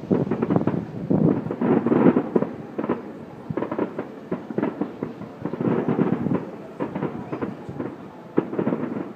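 Aerial firework shells bursting in quick succession: many overlapping bangs and crackles, thickest in the first two seconds and again around six seconds in, with a short lull between.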